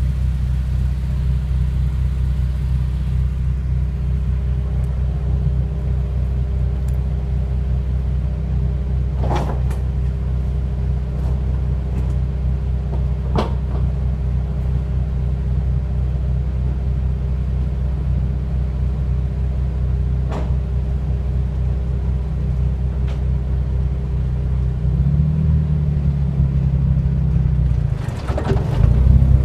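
Honda S2000 running at a steady low engine note, with a few sharp single clunks several seconds apart and a quick cluster of clunks near the end as the engine note changes. The clunking comes from a newly installed Ford 8.8 rear differential.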